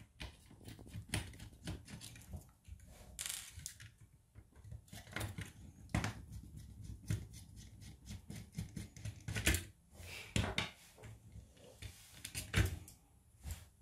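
Irregular small clicks and taps of a Torx screwdriver and fingers working the screws out of a VW California camping control unit's plastic housing, with tiny screws set down on a wooden table as it is taken apart.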